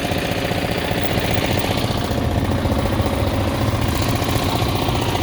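A farm tractor engine running steadily, with a rapid, even beat.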